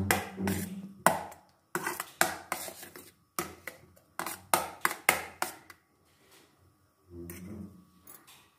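Metal spoon clinking and scraping against a glass bowl while stirring mayonnaise and cream together, a quick run of knocks about three a second that stops about six seconds in.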